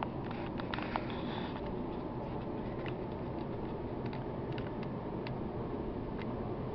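Handling noise from a handheld camera: a steady low rumble with a few faint, scattered clicks.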